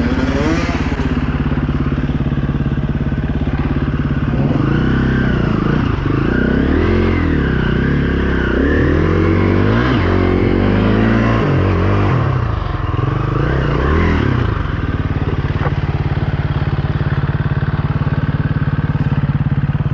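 Dirt bike engine ticking over steadily, then revved up and down over and over for about ten seconds, each rev rising and falling in about a second, before dropping back to a steady idle.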